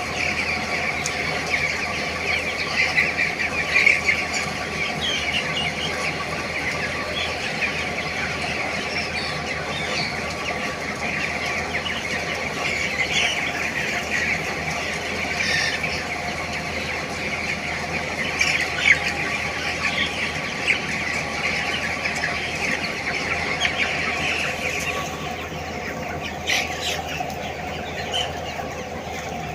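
A large flock of three-week-old broiler chickens peeping and chattering all at once in a shed, a dense unbroken din of high calls. A steady mechanical hum runs underneath.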